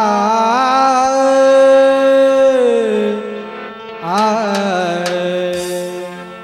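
Devotional singing: a singer holds long, wavering, wordless vowel notes in two phrases, with a pause about three seconds in, over a steady sustained instrumental drone. A few sharp clicks come about four to five seconds in.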